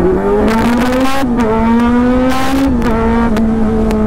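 Kawasaki Z900's inline-four engine accelerating hard through the gears. The engine note climbs, then dips briefly at an upshift about a second in and again near three seconds, and turns harsh near the top of each gear.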